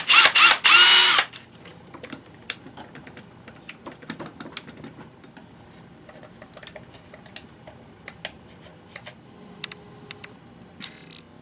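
Small electric drill whining as its bit bores into a small red plastic ear piece, the pitch wavering under load, then stopping about a second in. After that come faint light clicks and taps of small plastic parts being handled.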